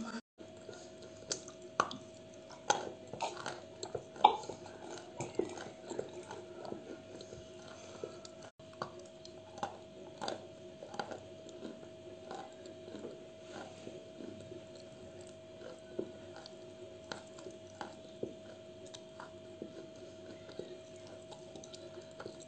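Close-up chewing of a mouthful of white chalk: crisp crunches between the teeth, sharpest in the first few seconds, then settling into softer, finer crunching. A faint steady hum runs underneath.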